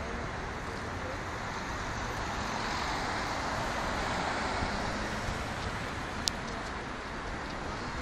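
Road traffic: cars passing on a multi-lane road, one passing close by so that the tyre and engine noise swells in the middle and fades. A brief sharp high click about six seconds in.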